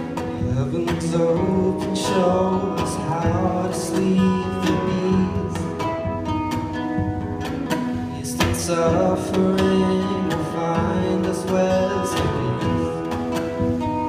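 Live music: an acoustic guitar picked and strummed, its parts layered through a Boss RC-30 loop station into a steady backing of held notes and repeated strums.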